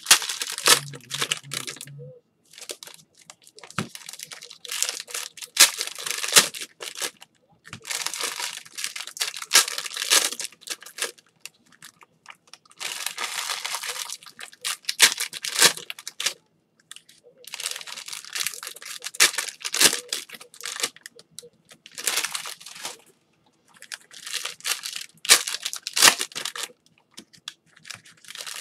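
Sealed Panini Prizm basketball card packs being torn open and their wrappers crinkled, in bursts of one to three seconds with short pauses between, full of sharp crackles.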